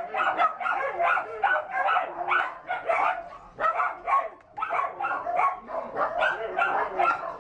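Shelter dogs barking without a break, several barks a second, with a short lull about four seconds in.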